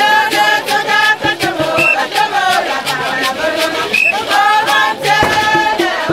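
Njang traditional dance music: several voices singing a chant together over a steady beat of sharp percussion strokes, with a short high note recurring about every two seconds.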